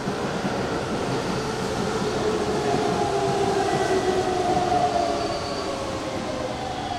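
Hanshin Railway electric train running past the platform: a steady rumble of wheels and motors with a few held whining tones above it that drift slightly in pitch.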